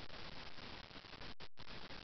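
Steady hiss of recording noise with no pitched sound in it, cutting out completely for a moment about one and a half seconds in.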